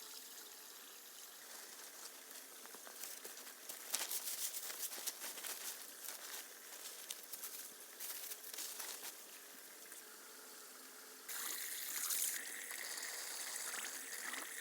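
Water trickling and running, with irregular crackles and clicks through the middle. About eleven seconds in, the water sound suddenly grows louder and brighter.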